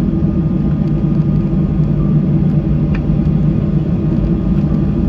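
Jet airliner cabin noise after landing: a loud, steady low drone from the idling engines and cabin air, as the plane taxis to its parking position.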